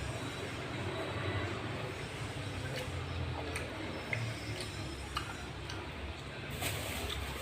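Cutlery ticking lightly against a plate a few times during eating, over a steady low background rumble.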